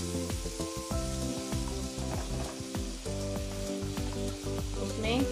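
Butter melting and sizzling in a hot nonstick wok, stirred at first with a silicone spatula: the start of a butter-and-flour sauce base. Soft background music with steady held tones runs underneath.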